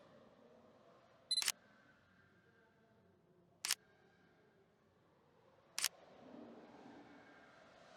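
Three short electronic beeps or clicks, about two seconds apart, over faint background hiss.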